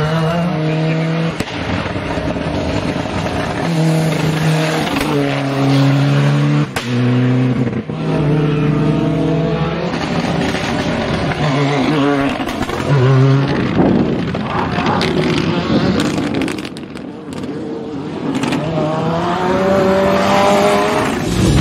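Ford Escort RS Cosworth rally cars driven hard, their turbocharged four-cylinder engines revving high and rising through the gears, the note dropping at each shift, over several passes.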